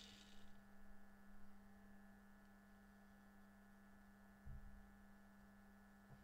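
Near silence: a faint steady electrical hum. The high whirr of a 00 gauge model locomotive's wheels and motor on a rolling road fades out in the first half-second as the loco slows down.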